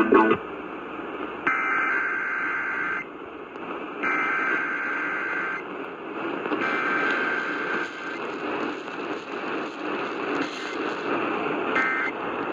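Emergency Alert System SAME header data tones heard over radio: three buzzy, warbling bursts of about a second and a half each, separated by short gaps, then a brief burst near the end, all over a constant static hiss.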